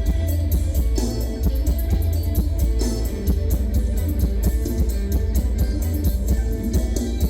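Isan mor lam band music: an instrumental passage with plucked guitar over a steady drum beat and heavy bass, no singing.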